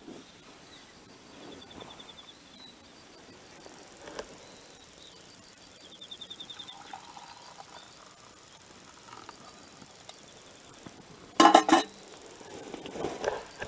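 Outdoor quiet with short, rapid high-pitched insect trills, three times. About eleven seconds in, a loud, brief clank of an aluminium canteen cup against its metal stand, followed by lighter clinks of handling.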